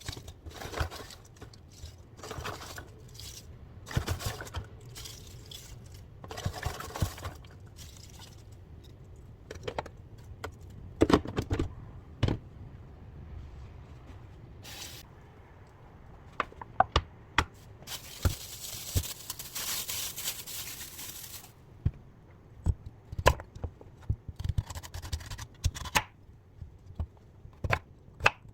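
Kitchen food-prep handling sounds: packaging rustling and tearing, with irregular clicks, knocks and scrapes of utensils and containers on a counter. A longer stretch of rustling comes about two-thirds of the way in.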